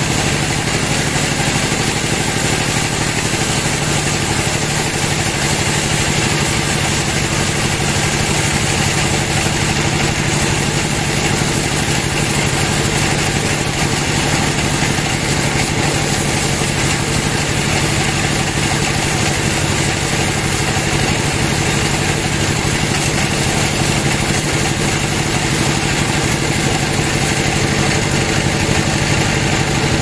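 Band sawmill ripping lengthwise through a large teak log: the machine and blade run in the cut with a steady, even drone that does not change.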